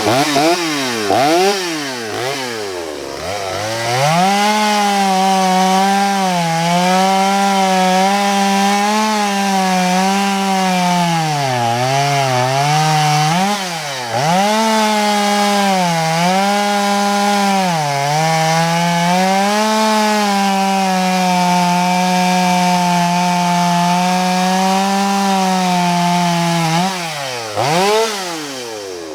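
Stihl 025 two-stroke chainsaw running under the throttle. It starts with quick revs up and down, then is held at high revs for long stretches broken by several brief dips, and drops back to idle near the end with one last blip.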